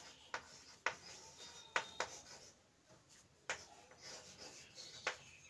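Chalk writing on a chalkboard: faint scratching broken by about half a dozen sharp, irregular taps as each stroke of a letter is drawn.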